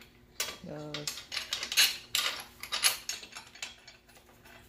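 Hand wrench turning a steel bolt into the engine guard mount: a run of irregular sharp metallic clicks and clinks from the tool, bolt and spacer.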